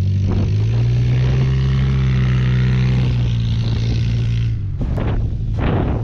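Honda Civic wagon's engine running while driving. Its steady note steps up about half a second in, holds, and falls away near the end.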